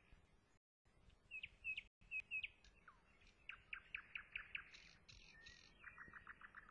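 Songbirds chirping faintly: a few sharp chirps, then runs of quick repeated notes and a fast trill near the end.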